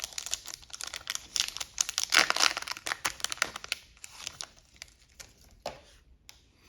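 Foil Yu-Gi-Oh booster pack wrapper crinkling as it is torn open, the crackling loudest about two seconds in and thinning to a few scattered crackles from about four seconds.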